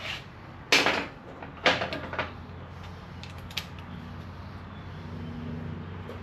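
Handled metal tools clanking: a few sharp knocks, two louder ones in the first two seconds, then fainter ones, over a steady low hum.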